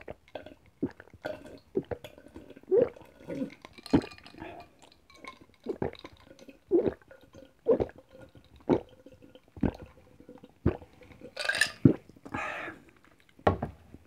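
A person gulping ice water from a glass, one swallow about every second in a long run, picked up close by a clip-on mic. A short, louder rush of noise comes near the end.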